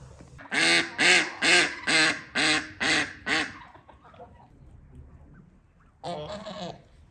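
Domestic waterfowl calling: a run of seven loud, evenly spaced honking calls at about two a second, then a shorter burst of calls about six seconds in.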